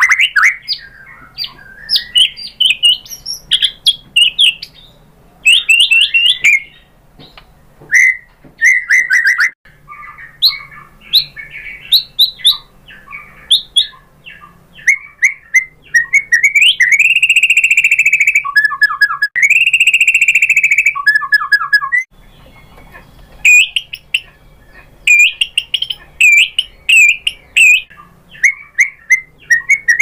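Male white-rumped shama singing loudly in a rich, varied song of quick whistled phrases, trills and chattering notes. About two-thirds of the way through come two long, ringing whistles, each followed by a lower stuttering phrase.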